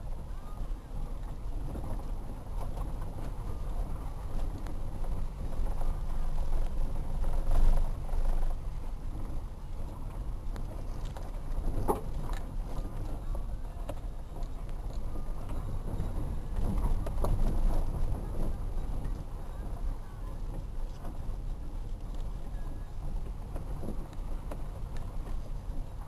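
Dacia Logan driving slowly down a rough dirt mountain road: a steady low rumble of engine and tyres on the rutted surface, with a few knocks and thuds as the car goes over bumps, the loudest about eight and twelve seconds in.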